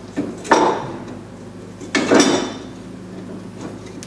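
Metal clanking as a large steel C-clamp is fitted onto a front brake caliper, ready to push the caliper piston back. There are a couple of knocks near the start and a louder clank about two seconds in.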